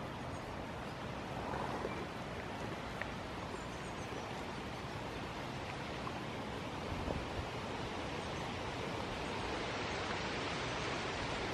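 Steady outdoor background noise, a hiss like wind on the microphone, with a few faint soft ticks and rustles as goats nuzzle close.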